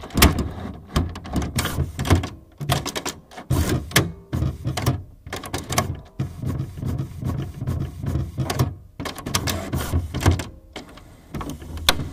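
Inkjet printer mechanism clattering in irregular bursts of clicks and knocks over a stop-start motor buzz: a printer on the verge of failing completely.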